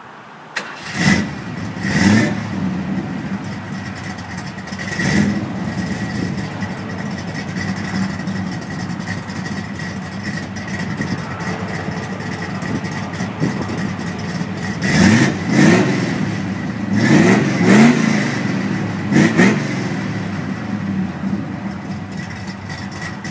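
Classic car's engine idling, its throttle blipped in quick revs: twice about a second in, once around five seconds, then a run of several revs between about fifteen and twenty seconds.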